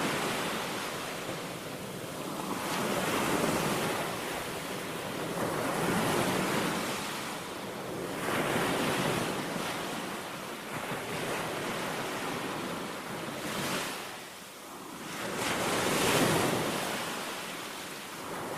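Small waves breaking and washing up a sandy beach, the surf swelling and fading every few seconds.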